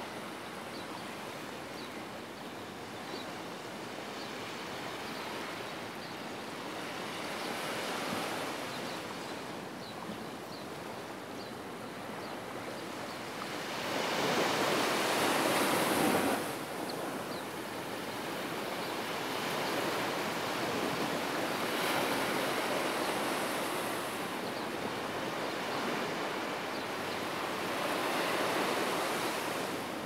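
Small ocean waves breaking and washing up a sandy beach, a steady hiss of surf that swells several times, with the loudest surge about halfway through.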